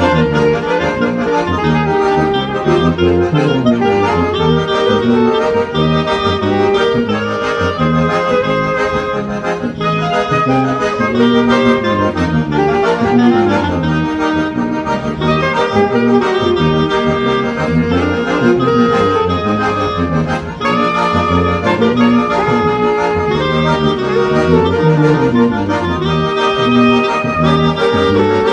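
A small ensemble of tuba, piano accordion, clarinet and saxophone playing a Congregação Cristã hymn together, with a walking tuba bass under the accordion chords and the clarinet and sax carrying the melody.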